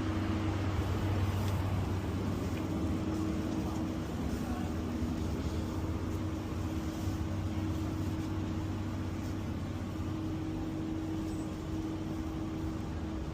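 Steady street background noise with a constant mechanical hum underneath, unchanging throughout.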